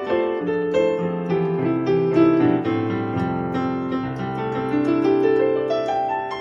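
Keyboard with a piano sound playing a chord passage in triad drop-2 voicings, the chords changing about every half second, with a rising run of notes about five seconds in.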